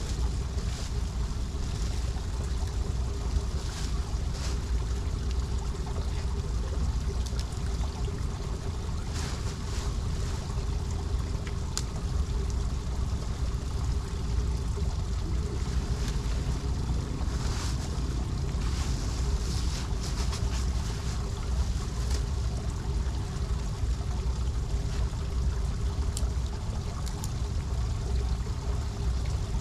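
Steady low rumble of wind buffeting the microphone, with scattered short rustles and crackles from twigs, leaf litter and a plastic bag being handled.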